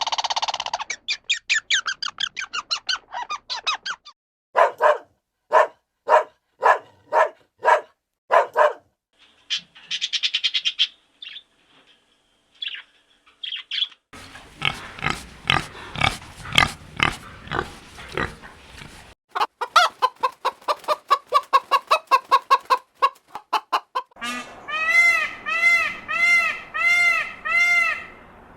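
A run of short farm animal clips, with poultry calls among them: repeated short calls in several bursts, ending in about seven arching honk-like calls.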